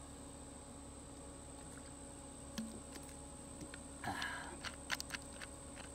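Faint outdoor ambience with steady insect chirring, a brief rustle about four seconds in, and a few light clicks.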